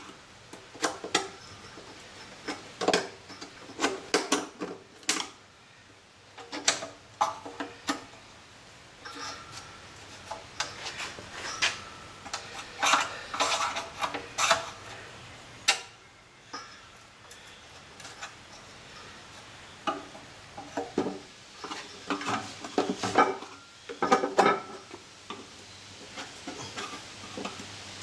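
Metal engine parts and hand tools clinking and clanking as they are handled: irregular knocks and clicks, some with a brief metallic ring.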